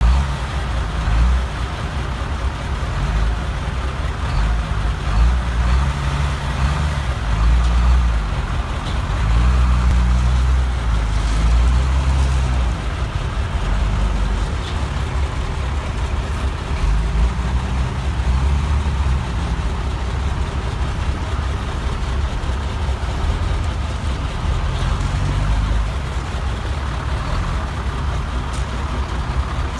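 Large diesel truck engine idling: a low, continuous rumble that swells and eases.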